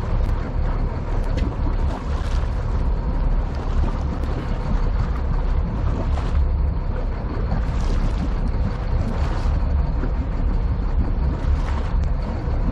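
Fishing boat's engine running steadily at trolling speed, a deep rumble, with water and wind noise over it and passing surges of hiss every second or two.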